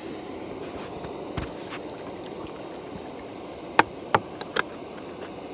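Water pouring from a clear plastic jug into a cooking pot, a steady splashing hiss, with three quick clicks a little under a second apart about four seconds in.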